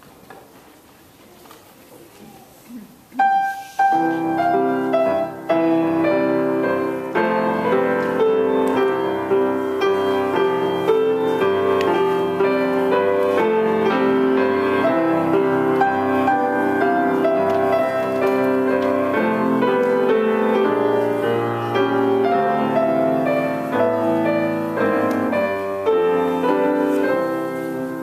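Grand piano played four hands as a duet. It starts about three seconds in after a short quiet pause, then chords and a melody carry on steadily.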